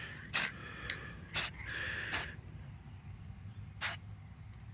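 Paint sprayer hissing in about five short bursts, trigger bumped on and off to put blue paint on a boat's bottom.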